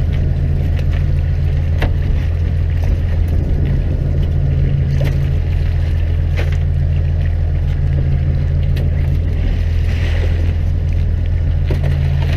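Fishing boat's engine running with a steady low drone, and a few short knocks and clicks as wire fish traps are handled at the rail.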